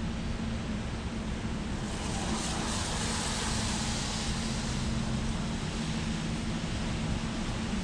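A vehicle passing on a city street, its noise swelling about two seconds in and fading a few seconds later over a steady low hum.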